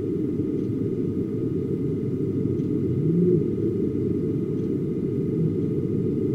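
Low, steady rumbling wash of a deep-ocean ambient soundscape, with one short rising-and-falling whale-like call about three seconds in.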